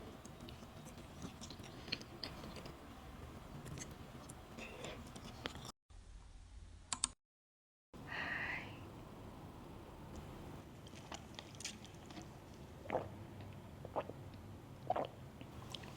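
Close-miked eating sounds of a matcha pudding crepe being chewed: scattered wet mouth clicks and a few louder smacks, with a brief drop to dead silence a little after seven seconds.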